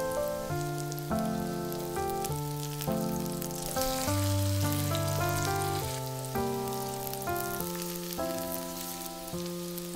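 Background music of changing melodic notes over the sizzle of shredded cabbage and carrot fritters frying in oil; the sizzle grows louder about four seconds in, as a wooden spatula turns the fritters.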